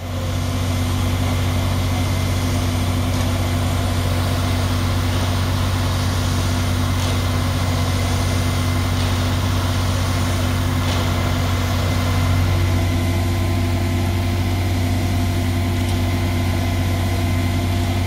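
Diesel engines of ready-mix concrete mixer trucks running steadily, a constant low drone whose pitch shifts slightly about twelve seconds in.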